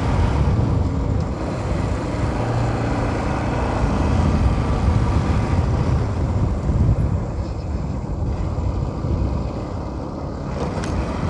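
Motorcycle engine running as the bike rides along the road, a steady low rumble mixed with road and wind noise, easing a little for a few seconds late on.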